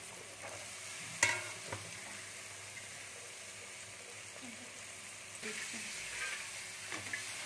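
Potatoes sizzling in hot oil in an aluminium kadai, a steady hiss, with a sharp metallic knock about a second in. The sizzle grows a little louder about five and a half seconds in as green peas go into the pan.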